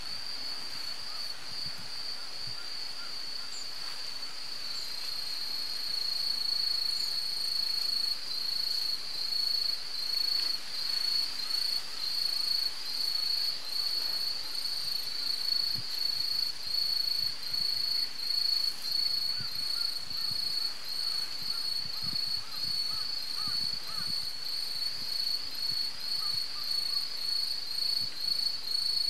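Insects chirring in a continuous, shrill, high-pitched drone. About five seconds in, the drone turns into a regular, even pulsing and gets a little louder.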